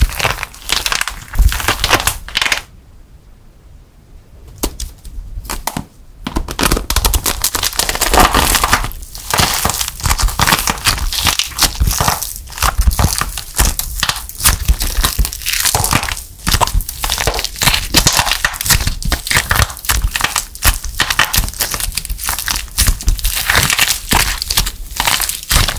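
Hardened plaster clay crackling and crunching as it is squeezed and crumbled by hand, its stiff outer shell snapping into flakes in a dense run of small sharp cracks. There is a quieter break of about three seconds near the start, then the crackling resumes.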